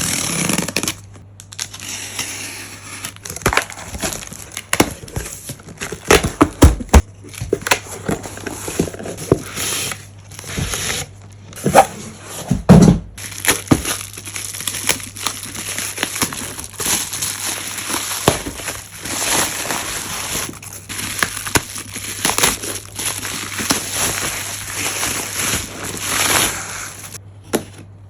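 Plastic and cardboard packaging being handled and opened, crinkling and crackling with scattered clicks and a few heavier knocks about six and twelve seconds in.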